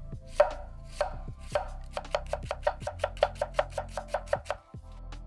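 Knife slicing a red onion on an end-grain wooden cutting board, the blade a 6-inch Nitro-V steel utility knife. Three spaced cuts come first, then a quick even run of about six knocks a second that stops about four and a half seconds in.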